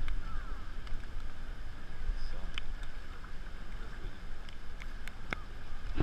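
Floodwater sloshing close to the microphone as someone wades through a flooded street, over a steady low rumble of wind on the microphone, with a few faint clicks.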